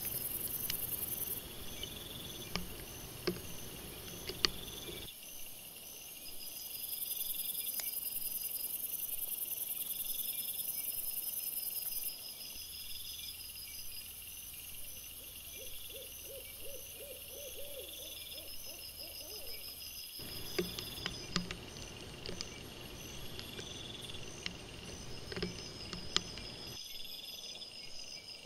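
Night insects, crickets or bush crickets, chirping in evenly repeating high-pitched pulses, with scattered faint clicks and rustles. A short series of low trembling pulses comes about halfway through, and the background shifts abruptly several times where separate recordings are joined.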